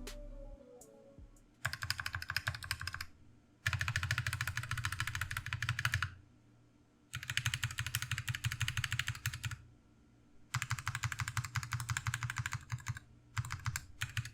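Stock, factory pre-lubed stabilizers on a GMMK Pro keyboard, tested with no switches installed: the stabilized keys are pressed rapidly in four runs of clacks, then a couple of short bursts near the end.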